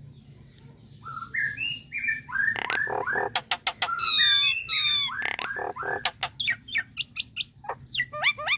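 Common myna calling: a varied run of bending notes, sharp clicks and high whistled phrases, starting about a second in and ending in a quick series of short rising notes.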